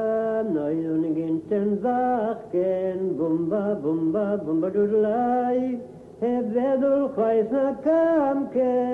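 A man singing a melody unaccompanied, in sustained phrases that step up and down in pitch, with a short break about six seconds in.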